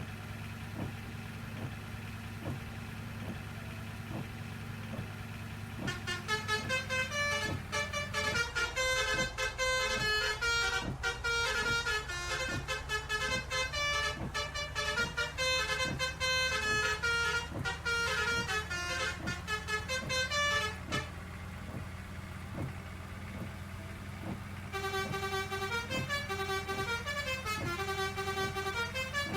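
A bus engine idling steadily, then a Basuri telolet horn playing a quick multi-note tune for about fifteen seconds starting some six seconds in. The tune stops, the engine runs on its own for a few seconds, and the horn melody starts again near the end.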